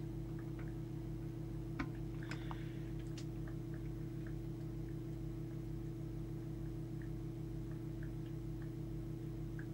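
Steady mains hum with scattered faint ticks and a couple of small clicks, as a plastic trimming tool turns the core of a tuning coil on the CB transmitter board while its output is peaked.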